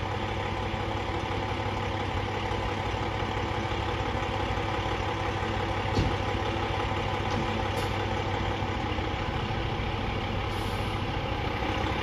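A fire engine's diesel engine idling steadily, with one brief click about halfway through.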